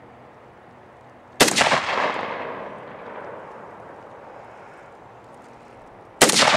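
AK-47 rifle (7.62×39 mm) fired twice, single shots about five seconds apart. Each sharp crack is followed by a long echo that dies away over a couple of seconds.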